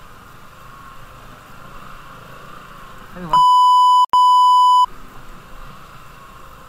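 A loud, steady 1 kHz censor bleep, about a second and a half long with a split-second break in the middle, that blanks out all other sound. Around it is the faint, steady running noise of a 100cc motorcycle being ridden slowly over a rough dirt road.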